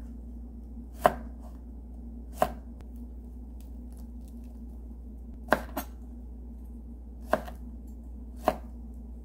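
Kitchen knife cutting dried jujubes on a plastic cutting board: six sharp, separate knocks of the blade reaching the board, one to three seconds apart, over a faint steady low hum.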